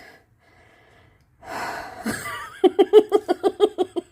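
A woman's breathy exhale, then a quick run of short, pitched laughing pulses, about seven a second, in the second half.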